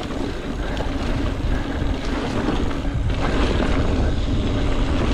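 Wind rushing over the microphone and a mountain bike's tyres rolling fast over a dry dirt single track.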